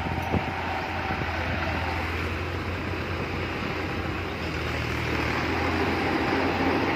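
Diesel farm tractor engines running steadily while a tractor works a rear blade, pushing soil; a short click about half a second in, and the engine noise grows a little louder in the second half.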